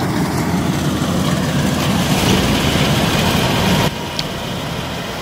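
Kubota DC-105X rice combine harvester running steadily as it cuts rice, its diesel engine and threshing machinery giving a continuous hum; the sound drops a little in level near the end.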